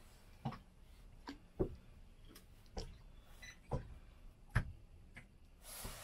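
Quiet, irregular light knocks and clicks on a small fishing boat, about one a second, with a brief soft rustle near the end.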